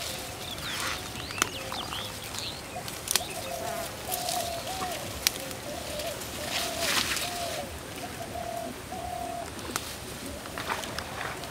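A dove cooing over and over in a low, even note, with leaves rustling and several sharp snaps as taro plants are searched and picked by hand.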